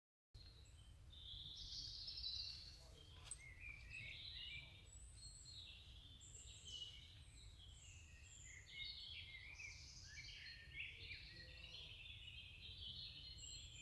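Faint woodland birdsong: several birds chirping and warbling, overlapping, over a low rumble. It cuts in sharply from dead silence at the start.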